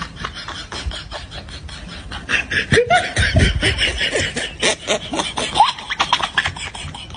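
Rapid wet lip pops and smacks, about four or five a second, as a macaque's fingers pull at and flick a woman's lips. About two seconds in they grow louder, and short rising squeaky vocal sounds join them.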